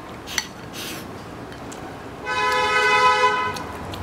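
A single steady horn blast lasting about a second and a half, sounding two close pitches at once like a vehicle horn. Before it comes a light click of chopsticks against a porcelain bowl.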